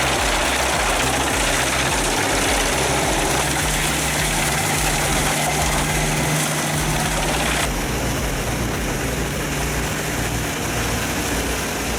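Large industrial drum wood chipper running steadily, a dense machine noise over its engine's drone, with a steady low hum standing out from about three and a half to seven and a half seconds in.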